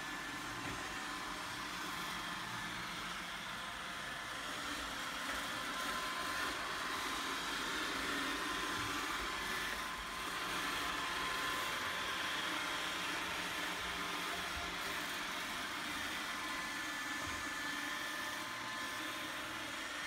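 iRobot Roomba 871 robot vacuum running as it drives across a wooden floor: a steady whir from its vacuum motor, with a thin, even whine above it.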